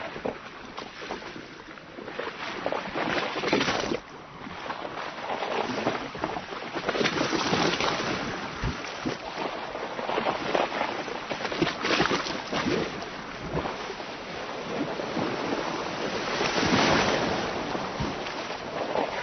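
Sea waves washing and splashing against a boat's hull, swelling in surges every four or five seconds, with the loudest surge near the end.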